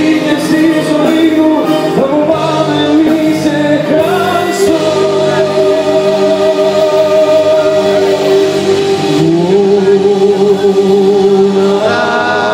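Live band playing a Greek popular song, a long held melody line with vibrato over keyboards and drums, recorded loud on a phone in the hall.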